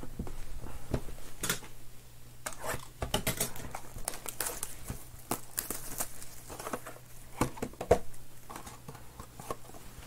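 Clear plastic shrink wrap crinkling and crackling as it is pulled off and handled, with cardboard boxes being shifted and tapped. The sound is a run of irregular sharp crackles.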